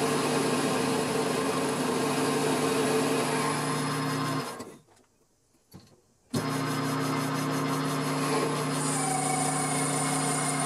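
Grizzly G4000 metal lathe running steadily with its motor hum while turning an aluminium pulley blank. About four and a half seconds in, the hum breaks off into near silence with the chuck at rest, then the lathe starts again abruptly about two seconds later. A thin high whine joins in near the end.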